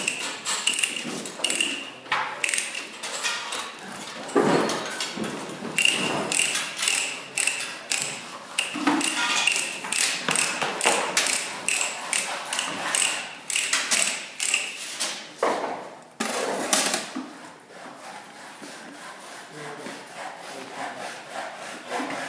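Irregular metallic clicking and clanking of hand tools working on steel pipe, including ratchet-like clicks, a few a second, quieter over the last few seconds.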